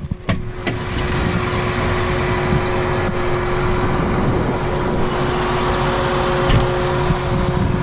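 An engine or machine running steadily with a constant hum, after a few sharp clicks or knocks right at the start.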